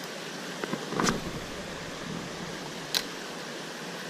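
Creek water running steadily, with a few small clicks and knocks, one about a second in and a sharp click near three seconds.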